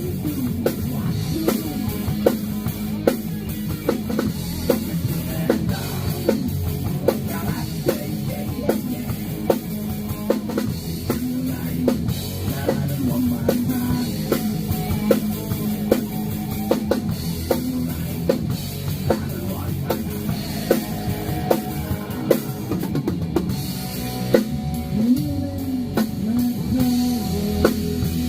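Rock band playing live in rehearsal: a drum kit keeping a steady beat with kick and snare, under bass and electric guitar.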